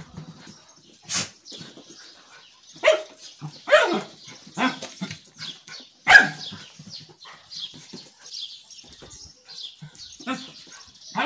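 A dog barking in short, separate barks spread out with pauses between them.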